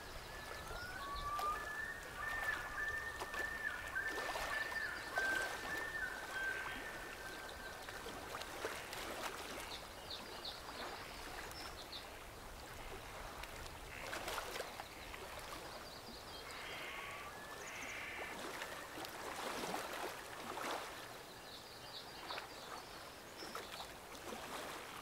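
Birds calling over a quiet outdoor background: a run of warbling chirps in the first several seconds, then short high calls that come back every several seconds, with faint soft rushing sounds in between.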